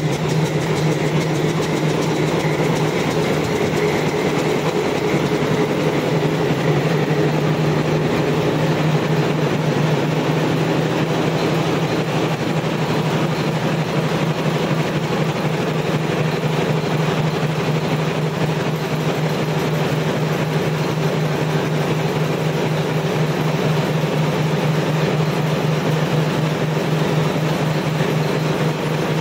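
Small rail vehicle running steadily along a track, with a constant motor hum and a fast, even clatter of wheels on rail.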